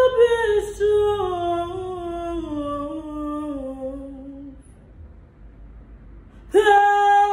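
A woman singing wordless, drawn-out notes without accompaniment. One long note slides down in steps for about four seconds and fades, and after a short pause a new, louder held note starts near the end.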